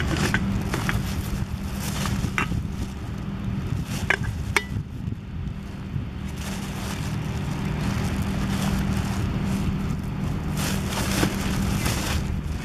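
A steady low engine hum with wind rumble on the microphone, broken by a few short sharp taps.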